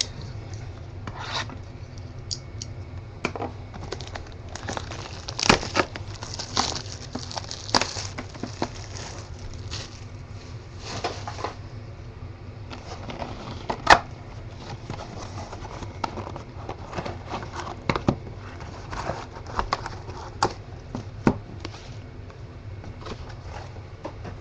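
Cardboard and plastic wrapping being handled as a sealed trading-card hobby box is opened and its wrapped inner boxes are taken out: irregular rustling, scraping and crinkling with scattered taps and clicks, and one sharp knock about halfway through.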